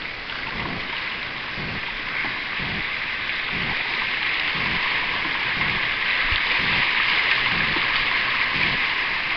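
Shallow river rapids rushing and churning in a steady roar of water around a canoe, growing louder as the canoe runs into the faster water.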